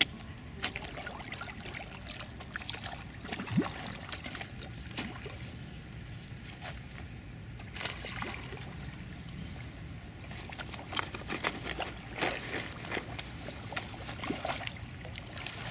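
Carp feeding on floating bread at the lake surface: repeated small splashes and sucking sounds as they break up and take the pieces, busiest in the second half.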